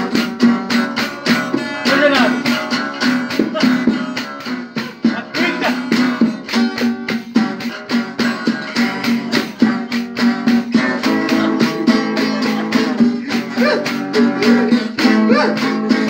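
Classical nylon-string guitar strummed in a steady rhythm, with a tambourine shaken and struck in time and a voice singing along.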